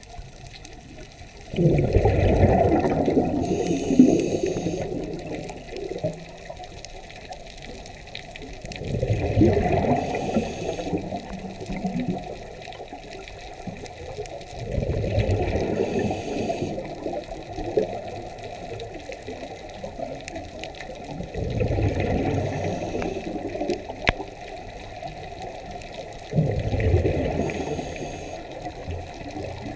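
Underwater bubbling of a scuba diver breathing out through a regulator: five surges of exhaled bubbles, about one every six seconds, each lasting two to three seconds.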